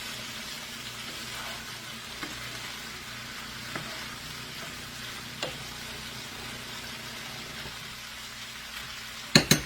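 Chicken, onion, bell pepper and pineapple chunks sizzling steadily in oil in a frying pan, with a few light ticks of a utensil stirring. Two or three sharp loud knocks about nine seconds in.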